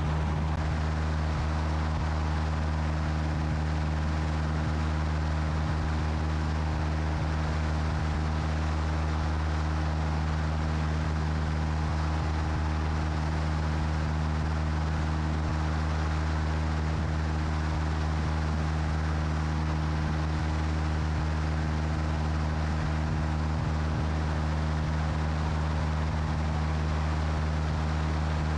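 Light aircraft's engine and propeller droning steadily in flight, with a low hum and rushing airflow noise that stay at an even level throughout.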